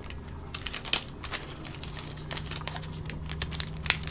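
Foil hockey card pack wrapper crinkling and crackling in quick, uneven ticks as it is torn open and peeled off the cards, with one louder crackle near the end.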